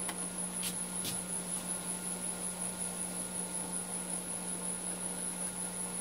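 Steady background hum with a faint high-pitched whine, and two light taps about a second in from hands working on the lathe's headstock parts.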